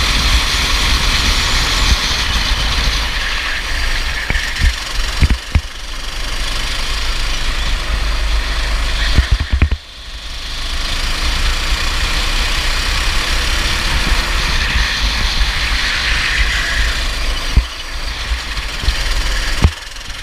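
Go-kart engine running at speed on a lap. The engine note drops away sharply about ten seconds in and then builds back up, and there are several brief sharp knocks along the way.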